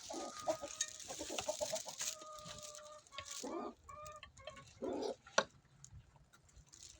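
Chickens clucking in short calls, with one drawn-out call about two seconds in, and a sharp click about five seconds in.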